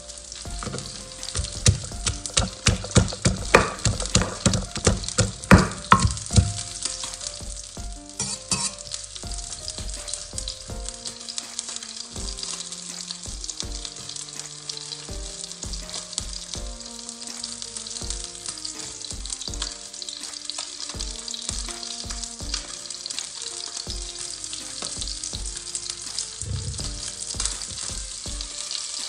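Wooden pestle pounding in a clay mortar, about two or three strokes a second for the first six seconds or so, with a few more strokes a little later, crushing chilies and garlic for a som tam-style salad. A steady frying sizzle runs underneath.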